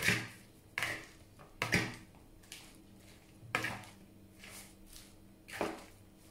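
A metal fork tossing lettuce salad in a plastic bowl, scraping and clinking against the bowl in short strokes about once a second.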